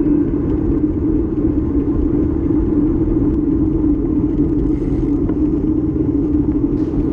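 Steady rushing wind and low rumble on the microphone of a bicycle riding at speed, with tyre noise from the track surface.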